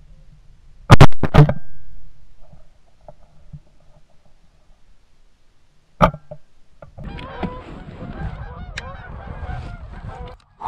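Two shots from a semi-automatic shotgun, the first about a second in and the second about five seconds later, with the gap from an action jammed by brush after the first shot. From about seven seconds on, Canada geese honk repeatedly as the flock flares away.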